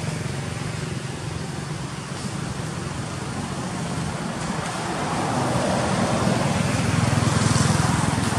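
Steady low rumbling background noise that swells louder in the second half.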